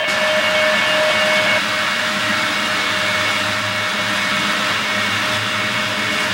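HO scale model diesel train running toward the camera, a steady mechanical whirr with a low rumble. A held tone stops about a second and a half in.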